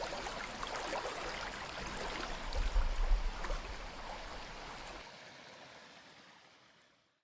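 Creek water flowing steadily, with a brief low rumble about three seconds in; the sound then fades out over the last two seconds.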